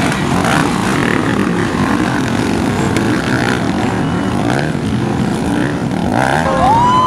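Several dirt bike engines revving as the motocross bikes ride through mud, the pitch rising and falling with the throttle. Near the end a loud, steady horn-like tone starts with a quick rise in pitch.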